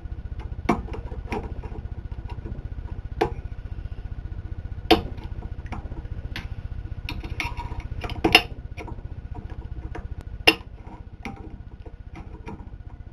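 Irregular sharp metallic clicks and taps of snap ring pliers working a snap ring in the steel clutch drum of a Ford C4 automatic transmission, the loudest about five, eight and ten seconds in, over a steady low hum.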